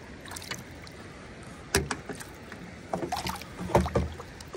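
Several sharp knocks and clicks over a faint steady hiss, the loudest about one and three-quarter seconds in and near four seconds in, with a short cluster of smaller clicks just before the second.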